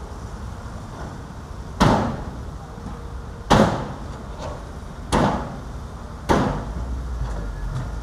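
Four heavy, irregularly spaced metal bangs, each ringing out briefly, as a CAT hydraulic excavator loads steel-bodied dump trucks. Under them runs the steady rumble of the diesel engines.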